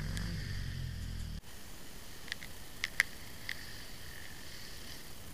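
A dirt bike's engine idling low, cutting off abruptly about a second and a half in. Then faint outdoor background with a few short, sharp high clicks, the loudest about three seconds in.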